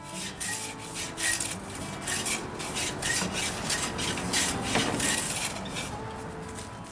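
Wooden frame patterns being shaped by hand: repeated rasping, scraping strokes on wood, about three a second.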